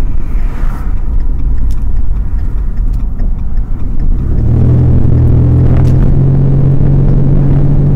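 Ford SUV engine running with its exhaust open after the muffler and resonator were removed: a loud, low rumble while driving. About halfway through it settles into a steady drone.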